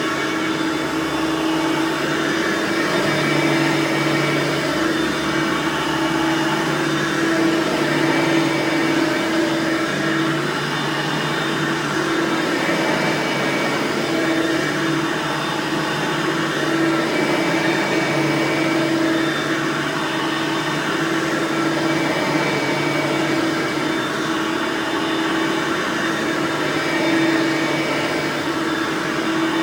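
Hoover Platinum Collection lightweight bagged upright vacuum running with its direct-air motor: a steady whirring hum with a constant tone, swelling and dipping slightly in loudness.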